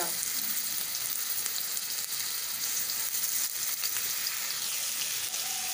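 Onions sizzling steadily in hot oil in a kadai, just dropped in to fry.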